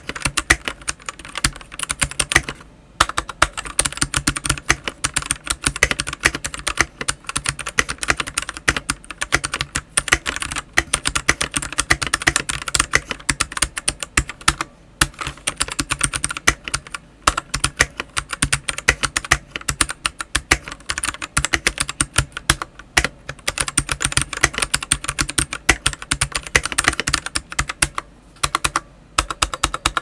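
Fast, continuous typing on a CIY X77 mechanical keyboard with its stock Jixian Brown tactile switches and stock PBT keycaps: a dense, rapid run of key clacks broken by a few brief pauses.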